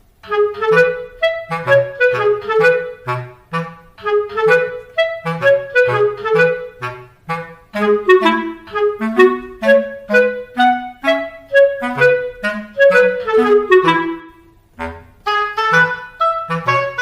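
Instrumental background music: a melody of short, quick notes over a bass line, with a brief pause a little under two-thirds of the way through.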